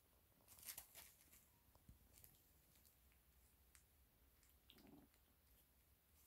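Near silence, with faint scuffles and rustles of Italian Greyhound puppies wrestling on a plush bed, and a brief faint low sound about five seconds in.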